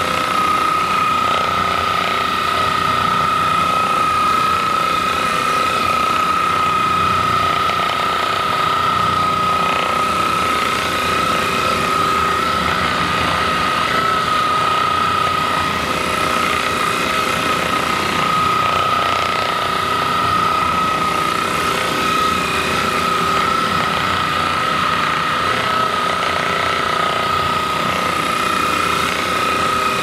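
Handheld percussion massage gun running against a person's back: a steady, even, high motor whine over the fast, continuous hammering of its head.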